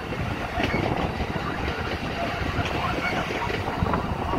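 Amtrak passenger train rolling away along the track: a steady rumble of wheels on the rails.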